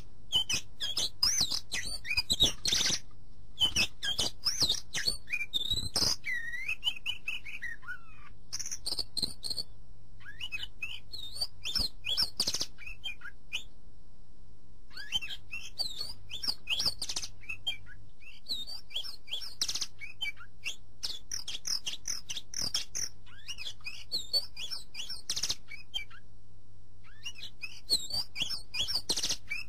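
Birds chirping and twittering in quick, varied calls, with several short breaks where the calls stop.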